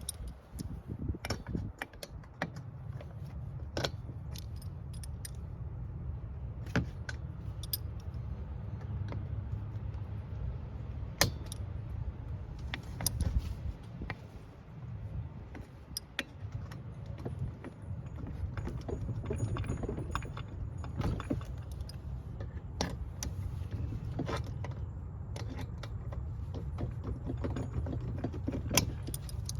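Small metal parts clinking and knocking at irregular moments, typical of washers and wheel hardware being handled while a wheel is fitted onto a cart axle, over a steady low rumble.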